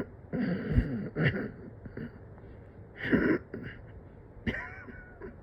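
A person coughing in short, irregular bursts, four strong coughs with weaker ones between, from someone short of breath.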